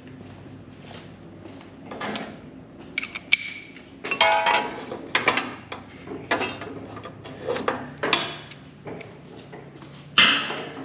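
Hand tools and steel parts clinking and knocking together during rear-axle work: an irregular string of sharp metal knocks, a few of them ringing briefly, with the loudest clank near the end.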